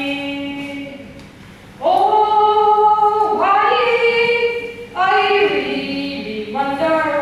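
A boy singing solo and unaccompanied, holding long notes in phrases, with a short breath pause about a second in.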